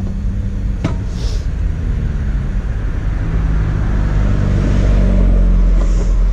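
Motorcycle engine running steadily, growing louder about three seconds in, with a single click about a second in.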